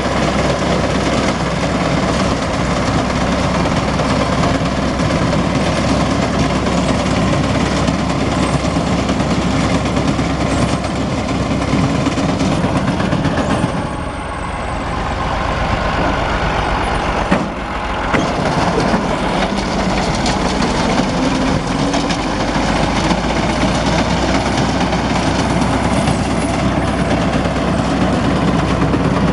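Ursus 2812 tractor's engine running steadily while it drives a wheat reaper. The level dips briefly about halfway through, and there is a short sharp knock a few seconds later.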